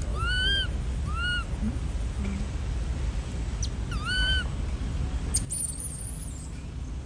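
Infant long-tailed macaque giving three short, high-pitched coo calls, each rising and falling. Two come close together at the start and one comes about four seconds in, over a low rumble that drops away near the end.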